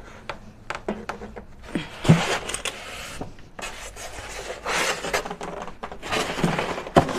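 Polystyrene foam tray full of dinnerware rubbing and scraping against the sides of a cardboard box as it is lifted and worked back in. Scattered small knocks and clicks come through, with longer scrapes about two seconds in, around five seconds, and near the end.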